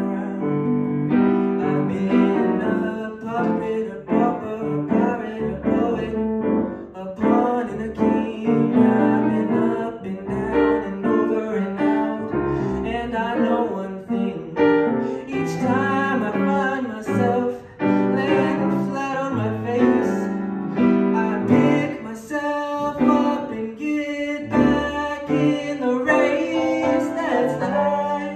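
Live music: a man singing with grand piano accompaniment.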